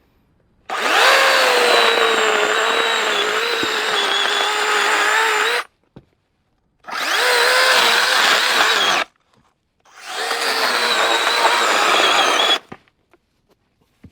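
Cordless electric mini chainsaw running in three bursts, the first about five seconds long and the next two shorter, its motor whine wavering as it cuts wood.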